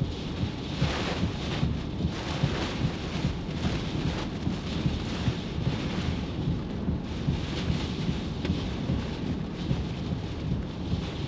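Hurricane Ian's southern-eyewall winds at their peak, a Category 4 hurricane: driving rain and howling wind that swells in repeated gusts over a heavy low rumble.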